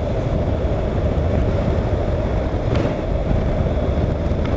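Motorcycle riding at town speed: a steady rush of wind on the microphone over low engine and road noise.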